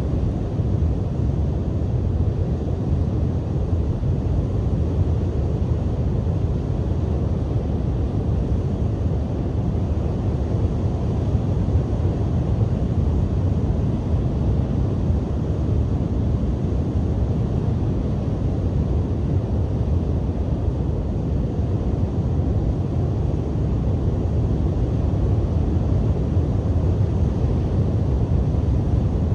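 Strong coastal wind buffeting the microphone, a steady deep rumble with the wash of surf underneath and no separate crashes standing out.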